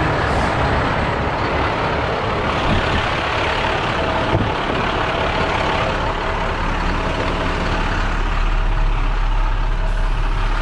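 Steady hiss of compressed air escaping from a big leak in an International heavy truck's air brake system, over the low rumble of an idling truck engine. A single knock about four seconds in.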